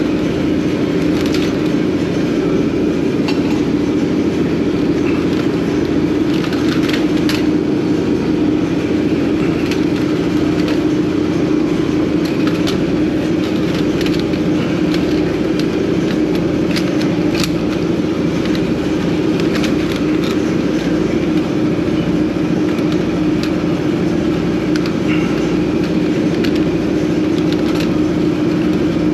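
An engine running steadily with a constant hum and an even low pulse, with scattered light clicks and knocks of work over it.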